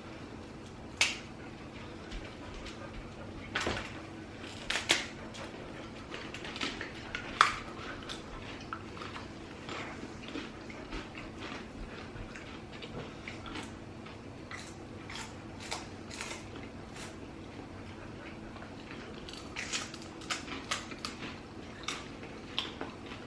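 Puffed rice cakes with an apricot yogurt coating being unwrapped, broken and bitten: scattered crisp crackles and clicks of the snack pack and the crunchy cakes, clustered around a few seconds in and again near the end.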